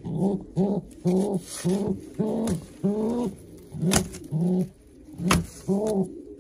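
Domestic racing pigeon cooing in a series of about nine short, arched, low notes, with two sharp clicks in the second half.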